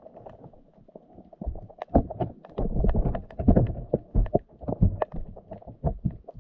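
Underwater knocking in rough water: a wire fish trap rattling, with irregular clicks and knocks over low rumbling surges. It grows busier and louder from about a second and a half in.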